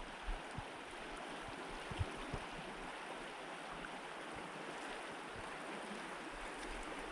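A stream's water running steadily, with a few soft low thumps near the start and about two seconds in.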